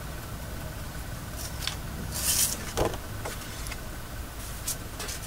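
Sheets of paper being handled and slid across a cutting mat: a few short rustles and light taps, with a longer sliding swish about two seconds in, over a low steady hum.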